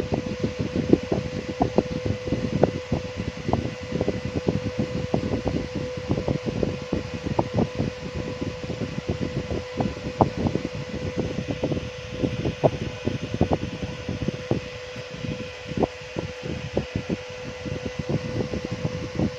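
Steady hum with a fixed whine, like a small fan running, under dense, irregular small clicks and crackles. This is heard while a phone's charging jack is being desoldered with a 60 W soldering iron.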